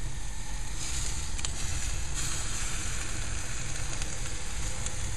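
Squid (calamari) pieces sizzling on the grates of a very hot grill, a steady hiss that grows a little louder about a second in, over a steady low rumble.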